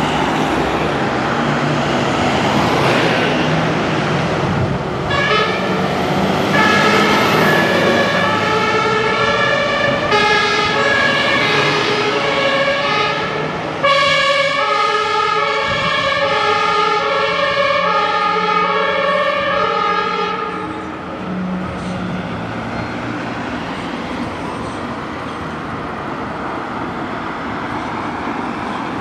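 German fire-service two-tone sirens (Martinshorn) sounding as fire vehicles drive past, stepping between a high and a low note about once a second, with more than one siren overlapping. The sirens start about five seconds in over diesel engine and road noise and die away about twenty seconds in, leaving engine and traffic noise.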